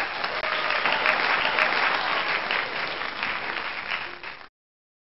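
Applause of many people clapping, a recorded track dropped into the edit, which starts suddenly and cuts off abruptly about four and a half seconds in.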